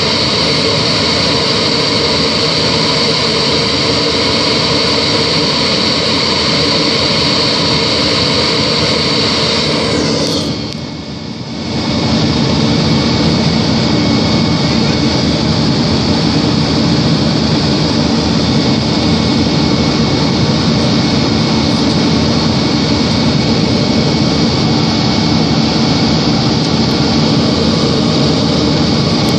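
Yak-42's three rear-mounted Lotarev D-36 turbofans heard from inside the cabin during the climb after takeoff: a steady loud rush with a high turbine whine. About ten seconds in, the sound dips briefly, then comes back with less of the high whine.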